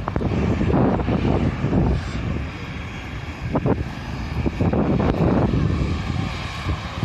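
Strong wind buffeting the microphone in uneven gusts, a heavy rumble that swells and drops every second or so.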